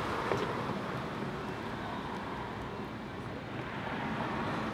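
Outdoor street ambience: a steady wash of distant traffic noise.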